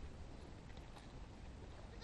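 Faint, steady low rumble with a soft click about a second in; no bleating.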